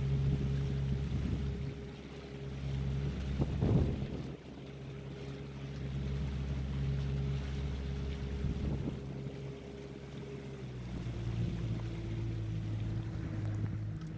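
Motorboat engine running steadily under way, a low hum with wind buffeting the microphone. About eleven seconds in, the engine note changes pitch.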